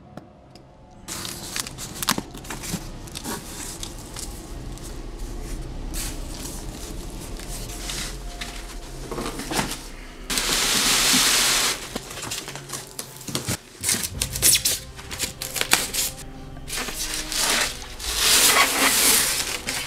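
Cardboard box and styrofoam packing being handled and pulled apart: irregular rustling, scraping and knocking. There is a loud, even, hissing scrape for about a second and a half about ten seconds in, and a dense run of scraping near the end.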